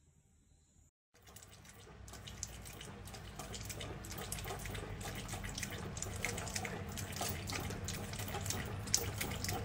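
Small dog drinking from a wall-mounted water bottle, licking its metal spout: fast wet clicking and dripping that starts about a second in and grows louder, over a low steady hum.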